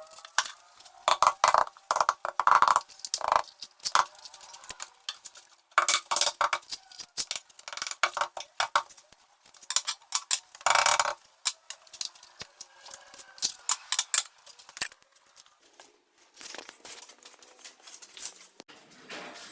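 Hard metal tools clinking and knocking in irregular bursts, some hits ringing briefly.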